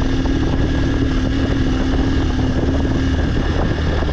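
Motorcycle engine running steadily while riding; its steady engine note drops away about three seconds in.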